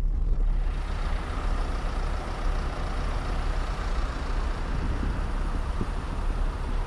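Steady vehicle noise: a low engine rumble under a broad, even hiss that grows louder about half a second in.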